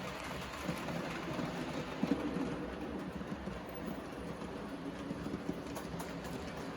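Märklin model train running along the track: a steady motor hum and wheel rumble with a few light clicks, briefly louder about two seconds in.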